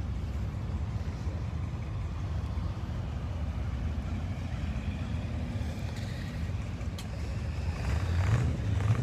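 Steady low rumble of a line of cars and trucks driving past, swelling a little near the end.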